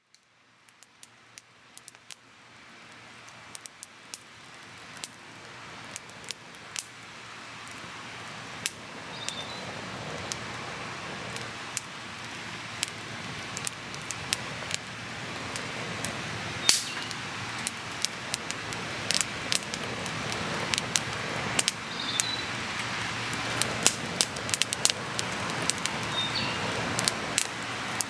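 Wood campfire crackling, with frequent sharp pops. It fades in from silence and grows steadily louder.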